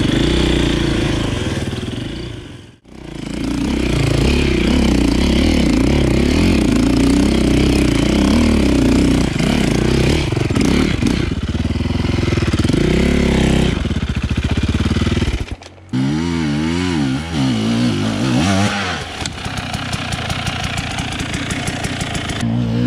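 Enduro motorcycle engine running and revving, its pitch rising and falling with the throttle, with two brief gaps in the sound, about 3 s in and about 16 s in.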